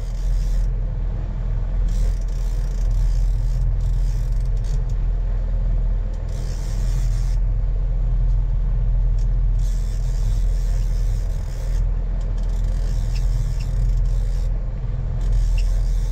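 Fishing boat's engine running steadily under way, a loud low drone. A rushing hiss comes and goes over it every few seconds.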